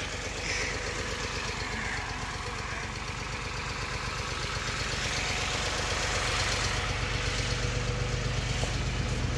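Farm tractor engines running steadily, growing gradually louder toward the end.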